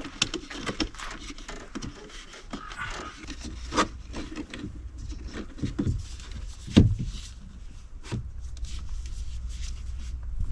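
Hand work at an outdoor electrical box: wires and the fixture being pushed and tucked into the box, with rubbing, scraping, light clicks and a couple of sharper knocks.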